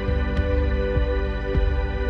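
Background music: a calm ambient piece with held tones over a steady low beat.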